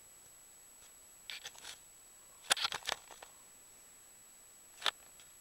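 Handling noise from a handheld camera: a few short clicks and scrapes, the loudest cluster about two and a half seconds in and a single sharp click near the end.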